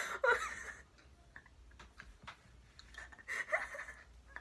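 A person giggling in two short, breathy bursts, one at the start and another a little past three seconds in.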